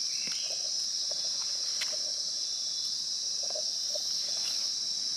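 Steady, high-pitched insect chorus drones without a break. A few faint rustles and ticks come from hands handling a picked mushroom among dry leaves.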